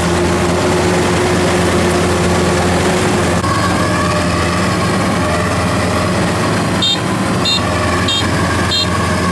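Combine harvester's diesel engine running steadily. Near the end, four short high-pitched beeps sound at an even pace, about two every second or so.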